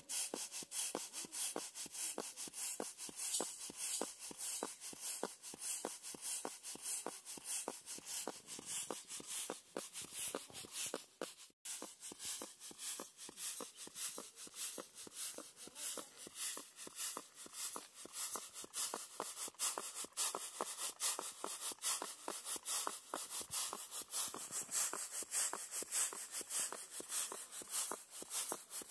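Ragi (finger millet) grain rustling and pattering on a woven bamboo winnowing tray as it is shaken and tossed by hand, in a quick, even rhythm of soft strikes.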